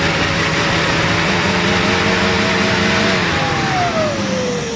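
Off-road vehicle's diesel engine revved by hand at the injection pump: it holds steady at raised revs, then the revs fall away over the last second or so.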